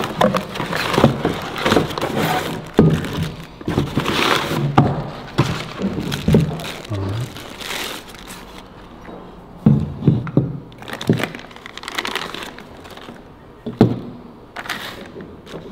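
Crumpled kraft packing paper and plastic bags rustling and crinkling as parts are unpacked from a cardboard box, with a few sharp knocks of metal brackets set down on a workbench in the second half.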